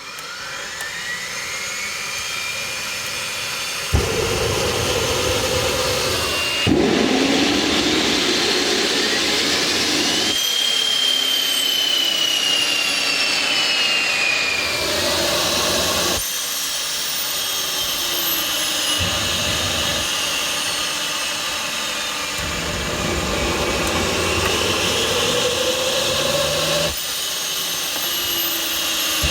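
Rover gas turbine engine being spun up by a KC-135 pneumatic starter: a rising turbine whine with a rush of air that surges and drops back abruptly several times, its pitch climbing and sagging, without the engine catching. The owner thinks the starter's high-pressure shut-off valve keeps closing.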